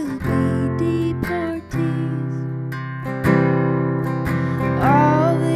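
Acoustic guitar strummed through the closing bars of a folk song, with a short break in the strumming about a second and a half in. A brief wordless vocal line rises near the end.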